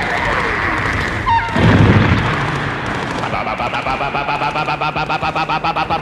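Battle sound effects: dense combat noise with one heavy blast, like a tank's main gun firing or a shell bursting, about one and a half seconds in. From about three seconds in, a rapid, even pulsing of roughly seven beats a second runs over a steady low hum.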